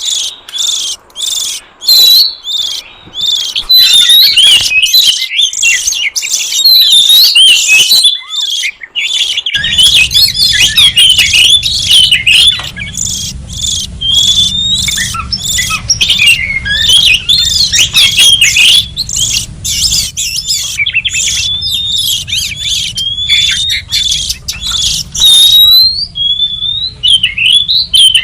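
Oriental magpie-robin song: a fast, unbroken run of varied loud whistles, chirps and slurred notes. From about a third of the way in, a low hum sits underneath.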